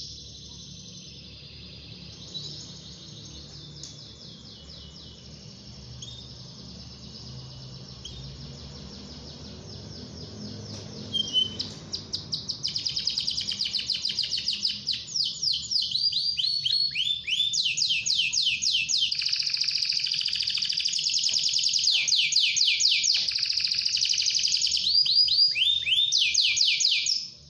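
Domestic canary singing: fast rolling trills and runs of quick downward-sweeping notes. The song is soft for about the first twelve seconds, then loud, and breaks off just before the end.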